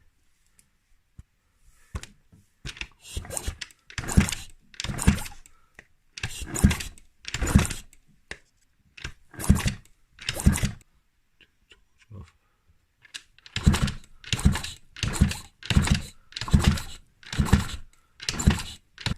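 Yamaha DTR125's kick-starter kicked over and over, turning the two-stroke engine without it firing: about sixteen separate strokes, a couple of short pauses between groups, during a spark check.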